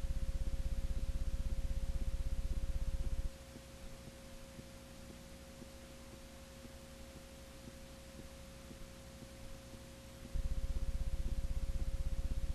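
Steady electrical hum on a blank stretch of videotape: a faint, thin, steady tone over a loud low buzz. The buzz drops out about three seconds in, leaving only the faint tone and hiss, and returns near the end.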